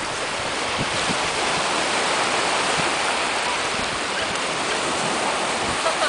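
Small waves breaking and washing up a sandy beach: a steady rushing hiss of surf.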